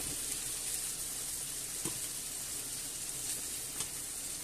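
Chicken pieces and chorizo slices browning in hot olive oil in a non-stick frying pan, a steady sizzle, with a couple of faint taps of metal tongs against the pan.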